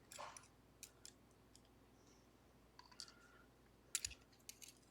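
Faint, scattered small clicks and ticks of metal lock parts being handled while a gin spool pin is taken out of a pin-tumbler lock's chamber.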